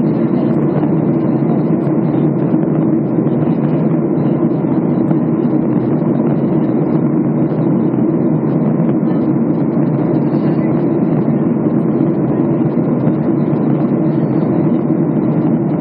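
Steady cabin noise of a Boeing 737 airliner in flight: an even drone of engines and rushing air heard from inside the cabin.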